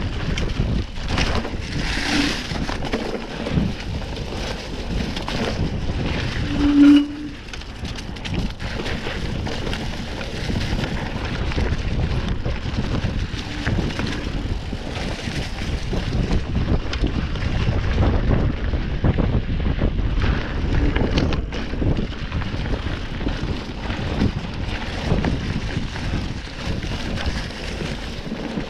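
Mountain bike ridden along a dirt trail: wind buffeting the microphone over the rolling of the tyres and the rattle and knock of the bike over bumps. About seven seconds in there is a short, loud squeal.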